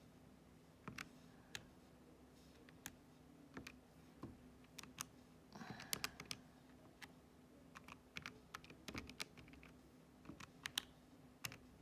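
Faint, irregular clicks of the plastic buttons on a Casio fx-991EX ClassWiz scientific calculator being pressed one after another as a long calculation is keyed in.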